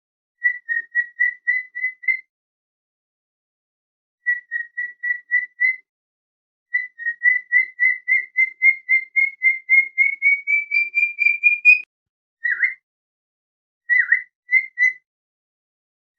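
Cockatiel whistling in phrases of rapid, evenly repeated short notes, about four a second. The longest phrase rises slowly in pitch, and a few short downward-swooping notes follow near the end.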